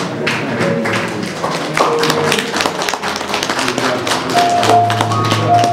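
Music: a rapid run of sharp percussive taps, with held notes over a low bass tone coming in about four seconds in.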